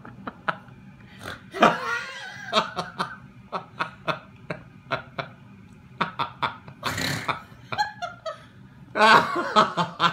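A person laughing in runs of short repeated pulses, about four a second, with longer voiced stretches about two seconds in and again, louder, near the end.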